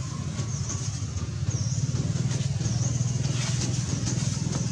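A small engine running steadily with a low, even hum, over a steady high hiss.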